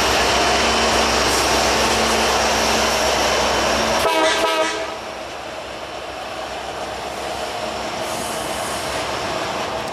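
A Canadian National diesel freight locomotive passing with a loud engine rumble. About four seconds in there is a short horn blast, and then the engine sound drops away, leaving the steady rolling noise of freight cars going by on the rails.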